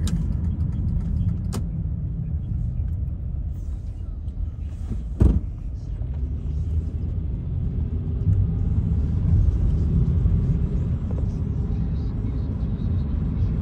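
A car driving on a backroad: a steady low rumble of engine and tyres. A single sharp knock about five seconds in is the loudest sound, and a faint click comes earlier.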